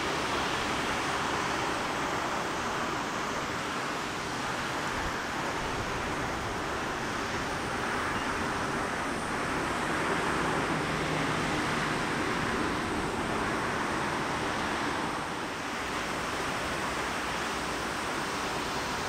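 Boeing 777-300 airliner's Rolls-Royce Trent 800 jet engines at taxi power: a steady rushing hiss with a faint low whine, as the jet taxis and turns onto the runway.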